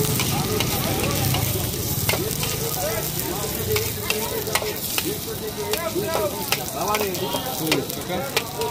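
Egg sizzling in hot oil in a black iron wok while a steel spatula stirs it, scraping and clicking against the pan many times.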